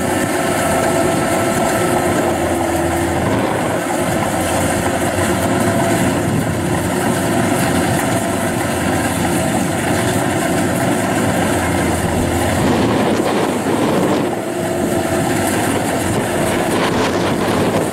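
Kubota DC93 rice combine harvester's diesel engine and threshing machinery running steadily under load as it cuts rice in soft, sticky mud. There is a brief dip in level about fourteen seconds in.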